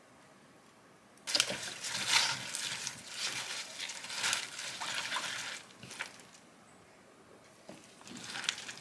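Gloved hands tossing and mixing small green onions and king oyster mushrooms with thick red kimchi seasoning paste in a glass bowl: wet squishing and rustling. It runs for about four seconds from a second in, then comes again briefly near the end.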